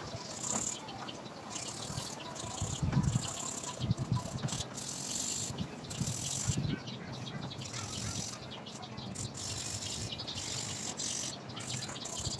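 Sandpaper rubbing by hand on a scooter's painted alloy mag wheel, in irregular scratchy strokes. It is the scuffing of the old finish so that new paint will grip, with the paper wetted in water.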